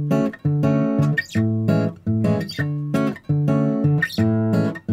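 Bossa nova background music on acoustic guitar, chords plucked in a steady rhythm.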